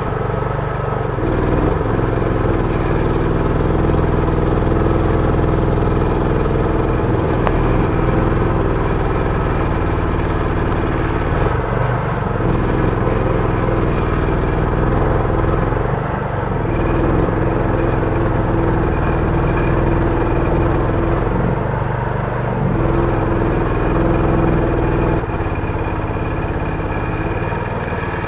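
BAWAD long-tail outboard mud motor running steadily at working speed, driving a flat-bottomed boat through dense marsh grass. Its note dips briefly a few times as the load changes.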